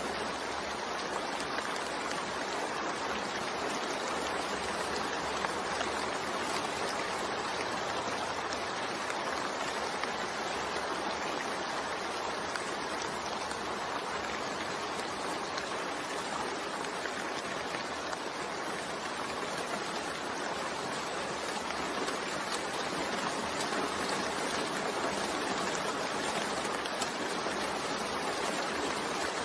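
Steady rain: an even, unbroken hiss of falling water with no single drops standing out.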